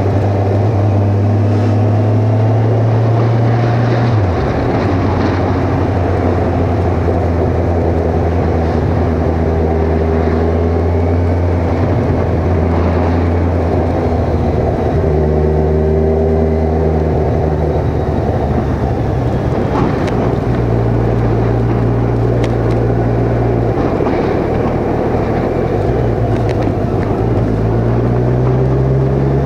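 Kawasaki Ninja 1000's inline-four engine running under way, heard from the rider's helmet, with the rush of wind over it. Its pitch drops sharply about four seconds in and shifts up and down a few more times with the throttle, rising again near the end.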